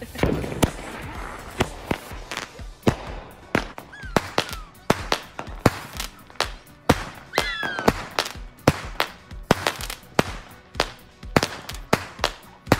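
Aerial fireworks bursting overhead: a rapid, irregular series of sharp bangs, several a second.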